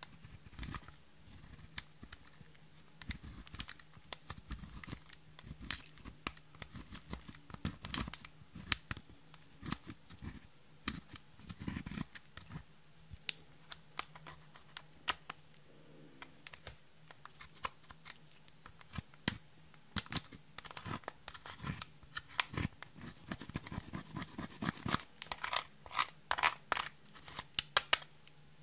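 A small flat tool scraping and breaking up pressed highlighter powder in a plastic compact palette: a run of irregular short scratches and clicks that grows denser and louder near the end.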